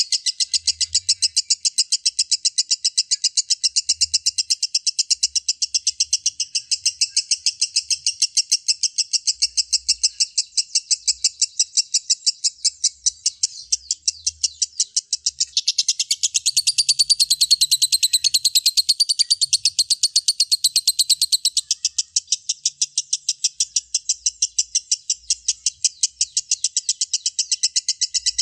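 Lovebird ngekek: one long unbroken chattering trill of rapid high notes, about six a second, growing louder and higher-pitched for a few seconds past the middle.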